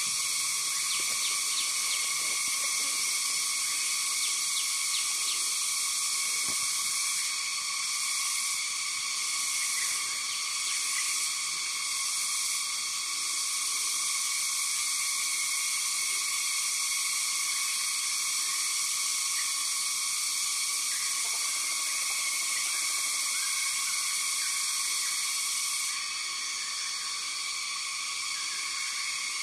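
Dense chorus of forest insects ringing steadily in several high, sustained tones, with an extra pulsing high trill for a few seconds in the middle that drops away near the end.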